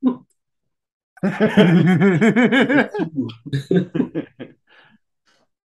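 Men laughing, starting about a second in with a loud run of laughter and dying down into a few scattered chuckles.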